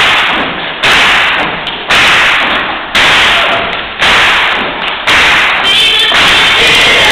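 Gospel choir clapping in unison, a loud hit about once a second, five times, each ringing out in the hall before the next. Singing voices come back in near the end.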